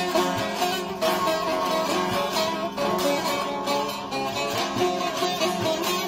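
Bağlama (long-necked Turkish saz) played solo: a quick, continuous run of plucked melody notes, the instrumental introduction to a Turkish folk song before the singing begins.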